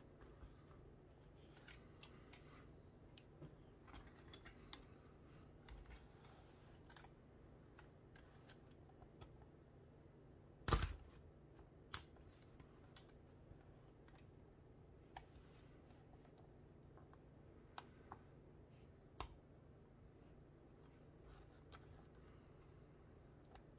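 Plastic building-brick parts (Technic-style beams and pins) clicking and tapping as they are handled and pressed together, scattered small clicks in a quiet room. One sharp, louder clack comes about eleven seconds in and another a little before twenty seconds.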